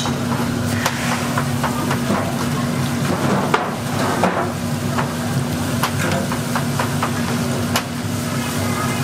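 Steady low mechanical hum, with scattered sharp clicks and taps of metal utensils against a steel batter bowl.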